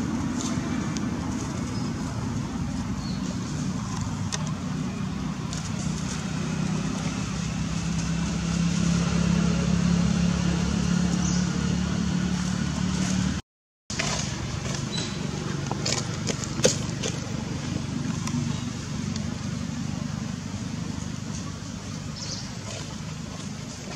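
A motor engine running steadily off to one side, its low hum growing louder toward the middle and then easing. The sound cuts out completely for a moment just past halfway, and a single sharp click comes a few seconds later.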